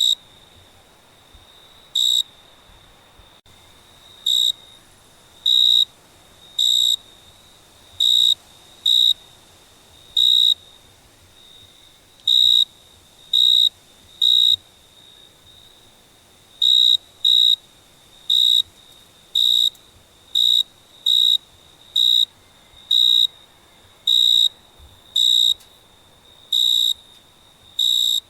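A cricket chirping: short, high chirps all at one pitch, roughly one a second at uneven intervals, over a faint steady trill at the same pitch.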